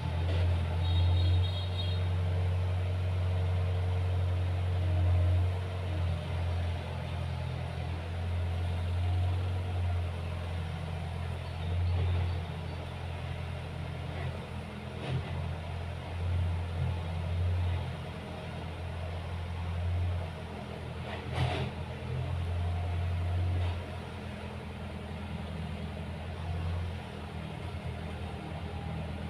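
A low rumble that keeps swelling and easing, with one sharp tap a little over twenty seconds in.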